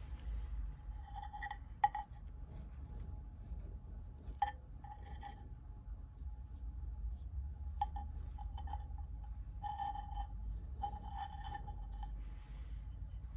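Woven glass seed beads clicking and clinking against each other as a beaded form is turned and flexed in the hands, with two sharper clicks in the first few seconds and then repeated small clusters of clinks.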